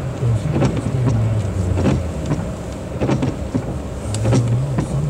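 Car driving on a snowy road: steady engine and road drone with irregular knocks and clatter.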